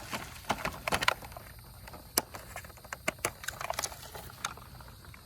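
Scattered light clicks and taps of things being handled, irregular and several to the second at times, with one sharper click about two seconds in.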